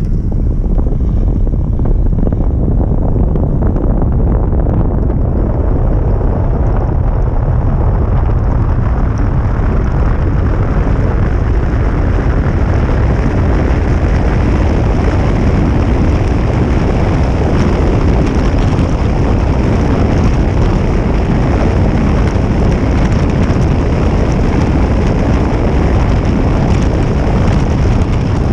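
Steady, loud rumble and hiss of a car driving in the rain: tyre, road and wind noise on wet tarmac, with the hiss building over the first several seconds.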